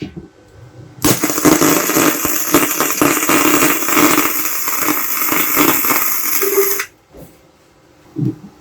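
Welding arc from a Kawasaki MINI MTM-300A inverter welder, crackling steadily for about six seconds, starting about a second in and cutting off abruptly.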